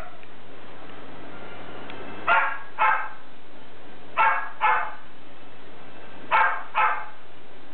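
An animal yelping in quick pairs of short calls, three pairs about two seconds apart, over a faint steady hum.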